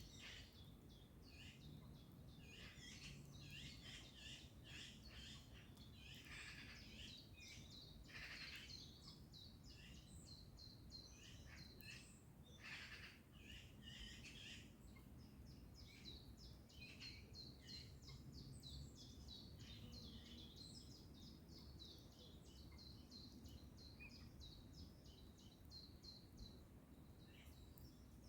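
Faint bird chorus: several small birds chirping and singing, with harsh chattering calls of Eurasian magpies in the first half. A fast, evenly repeated high trill runs through the second half, over a low steady background hum.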